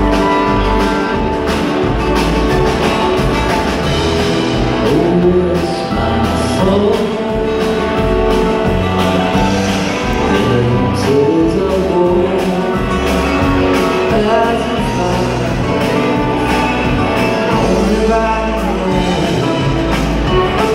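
Live jam-grass band playing a song: acoustic guitars, mandolin, fiddle, upright bass and drum kit together, with a lead vocal, amplified through a concert hall's PA.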